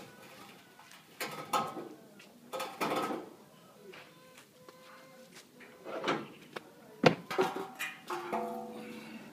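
Metal parts of a small wheel-type combine harvester being handled and fitted: a run of separate clanks and knocks, some ringing briefly, with the sharpest knock about seven seconds in.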